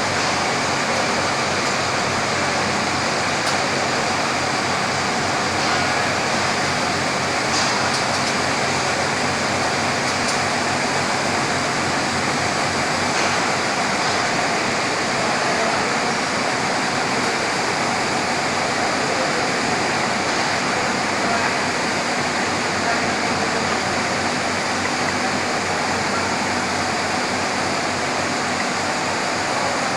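Gas singeing machine for textile fabric running, a loud, steady rushing noise that does not change, with a faint low hum under it.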